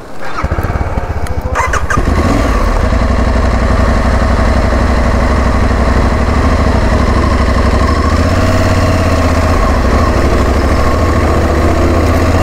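Aprilia Tuareg 660's parallel-twin engine starting: it cranks and catches within the first two seconds, then idles steadily.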